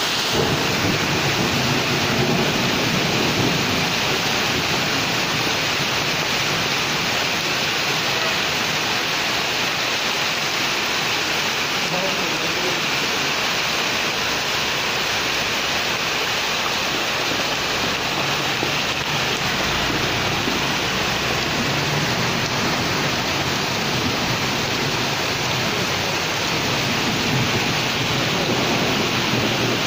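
Heavy rain pouring onto a paved street, a steady dense hiss of rain and running runoff water.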